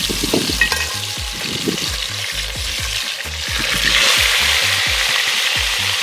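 Hot oil sizzling in a pot over a wood fire, with seasoning frying in it. The sizzle grows louder about four seconds in.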